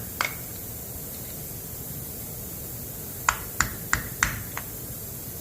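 Sharp metallic taps from a hammer on a seized exhaust manifold bolt in a Ford 429 big-block's cylinder head: one tap about a quarter second in, then a quick run of five near the middle. The bolt head has been torched off, and the tapping is to free the stud.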